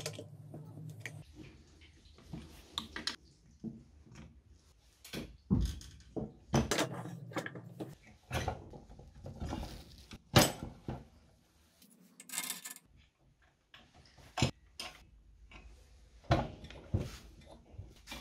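Metal electric-scooter parts being handled on a workbench: irregular clinks and knocks as the steel frame, motor and brackets bump together and against the bench, the loudest about ten seconds in.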